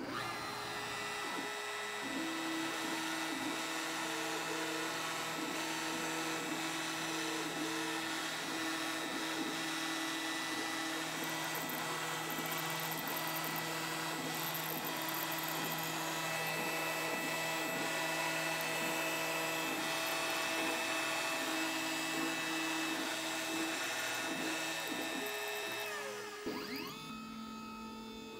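CNC router carving ice: the spindle runs with a steady high whine while the stepper motors hum and change pitch in quick steps as the gantry moves. Near the end the spindle winds down, its whine falling in pitch.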